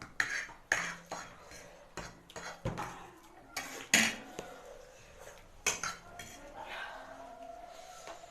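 Spoons and forks clinking and scraping against plates and bowls during eating, in a dozen or so irregular sharp clinks. Near the end a faint drawn-out whine comes in.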